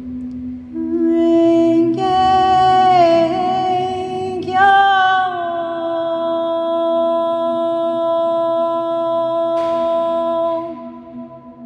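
A woman singing a slow, wordless melody over a steady low drone. She moves through a few notes, then holds one long note for about five seconds, which stops shortly before the end.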